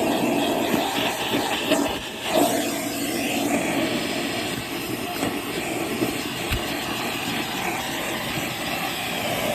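Milwaukee M18 6-gallon cordless wet/dry vacuum (model 0910-20) running steadily: a motor hum over rushing air, with a brief dip in level about two seconds in.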